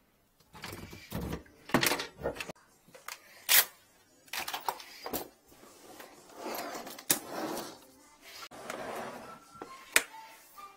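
Handling noise as tools and equipment are moved about: a string of sharp clicks and knocks with rustling in between, the loudest knocks about a third of the way in and near the end.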